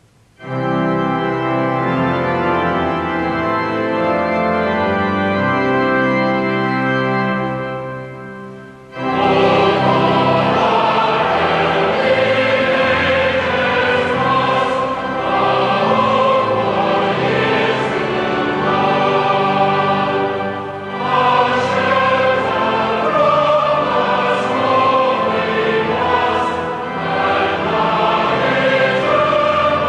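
Choral music: held chords for the first eight seconds or so, then after a brief dip the singing comes in fuller and brighter about nine seconds in and carries on.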